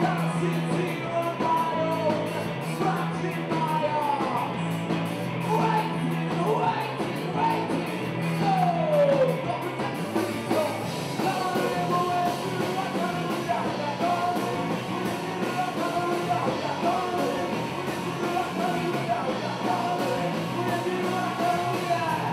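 Rock band playing live, with a singer over electric guitar, bass and drums.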